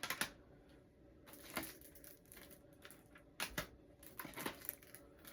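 Packaging being handled: rustling with scattered short clicks and knocks, several small bursts a second or so apart, as items such as cassette and CD cases are taken out of a box.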